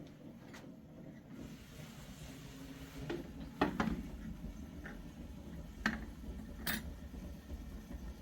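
A handful of short, sharp clinks and knocks, about five over a few seconds, the loudest about three and a half seconds in, like household things being handled and set down, over a low steady background rumble.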